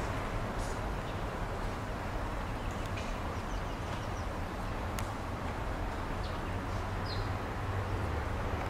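Outdoor background: a steady low rumble and hiss, typical of distant traffic, with faint short bird chirps now and then and a single light click about five seconds in.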